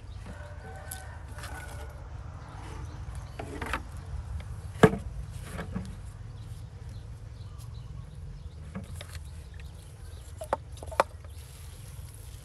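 Sharp clicks and knocks of plastic being handled as a plastic bottle cover is taken off a potted seedling and a hand pump sprayer is picked up. The loudest click comes about five seconds in, with two quicker ones near the end, over a steady low hum.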